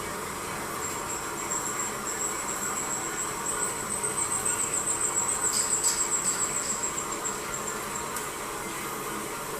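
Lathe running with a high-pitched squeal that pulses about five times a second, growing louder toward the middle and then fading, over a steady machine hum.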